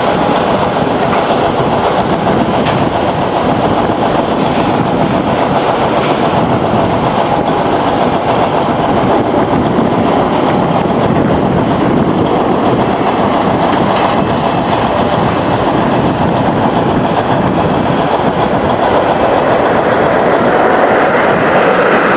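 Boeing 777-300ER's GE90-115B jet engines running, a loud steady rumbling noise that grows slightly louder near the end.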